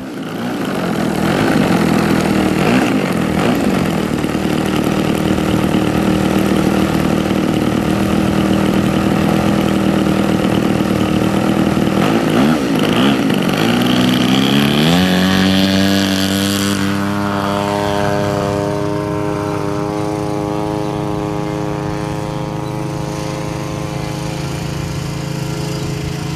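Twin-cylinder DA120 gas engine of a large radio-controlled Yak, running steadily at low throttle, then climbing in pitch over a couple of seconds around the middle as it is opened up. It then holds a higher steady note that slowly fades away.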